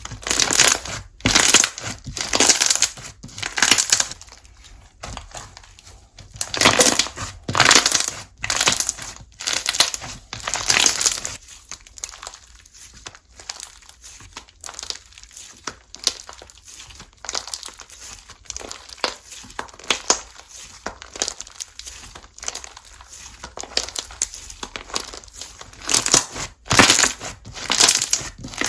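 Slime being squeezed, pressed and stretched by hand, giving crackly, crinkly popping sounds in repeated bursts, with louder spells at the start, in the middle and near the end.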